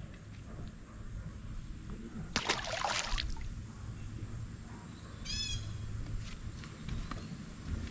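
A short bird call, a quick run of high chirps, about five seconds in. There is also a brief burst of noise about two and a half seconds in, over a steady low rumble.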